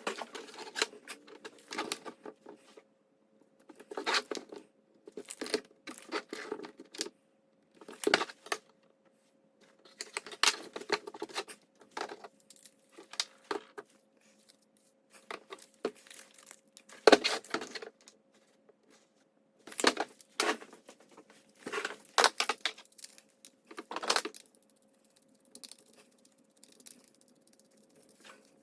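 Irregular rustling, crinkling and clicking of things being handled, in short clusters, over a faint steady hum.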